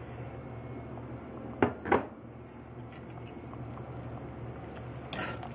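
Vegetable soup simmering at a gentle bubble in a large stainless steel pot. A metal spoon knocks sharply against the pot twice about a second and a half in, and clatters against it again near the end.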